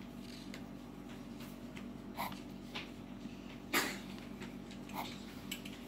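Quiet room tone with a steady low hum, broken by a few faint brief noises; the loudest, a short sharp sound, comes a little under four seconds in.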